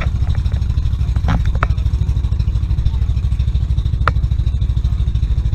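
Motorised outrigger boat's engine running steadily, a rapid, even low pulsing, with a few brief sharp clicks over it.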